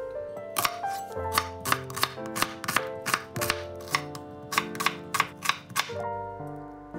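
Chef's knife chopping a white onion on a bamboo cutting board: quick, regular cuts about four a second, each a sharp knock of the blade on the wood, stopping about six seconds in. Background music plays underneath.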